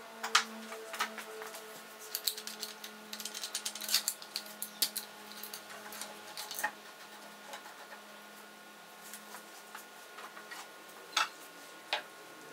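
Light clicks and taps of metal and plastic as parallel bar clamps are set and tightened on an aluminium straight-edge guide, with a metal square laid on the plywood. The clicks are thickest in the first half, and two sharper knocks come near the end. A faint steady hum runs underneath, and a falling tone fades out in the first few seconds.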